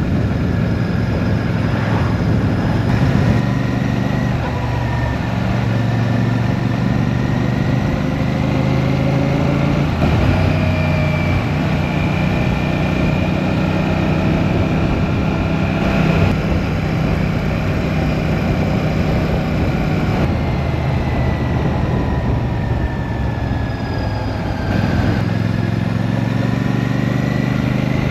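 Royal Enfield Shotgun 650's parallel-twin engine running while the bike is ridden on the road. Its note rises and falls several times with the throttle, dropping about 25 seconds in and then climbing again.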